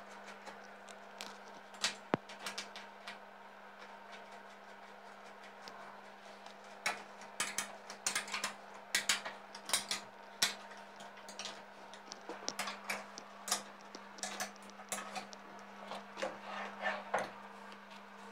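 Irregular light clicks, taps and clatter of small tools and materials being handled on a workbench, busier from about halfway through, over a steady low hum.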